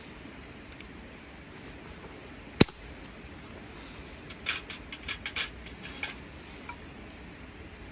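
One sharp click, then about two seconds later a quick cluster of lighter clicks and taps, over a faint steady hiss.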